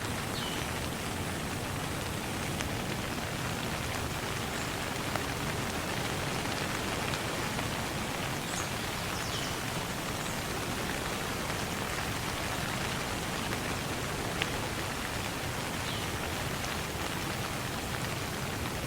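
Steady rain falling, a dense, even hiss of drops on surfaces, with a few faint, brief high chirps here and there.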